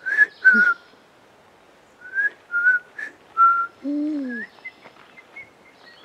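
A series of short, clear whistled notes: two right at the start, then four more about two seconds in. They are followed by a lower, longer note that slides down and fades.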